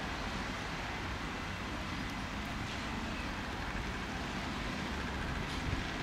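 Embraer Praetor 600 business jet's twin Honeywell HTF7500E turbofans running at taxi power: a steady jet hiss with a faint whine.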